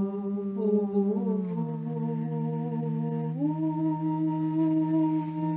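People humming a meditation chant in long, steady held notes. The low note steps down a little about a second and a half in, and a second, higher note joins about three and a half seconds in.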